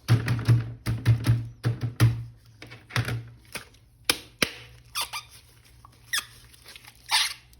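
A plastic action figure and its packaging being handled and unwrapped: a quick run of sharp plastic clicks, rustles and squeaks.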